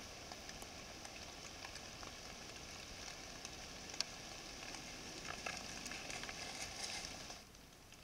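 Steady hiss from a trail camera's microphone, with scattered faint crackles and ticks and one sharp tick about four seconds in; it cuts off abruptly near the end.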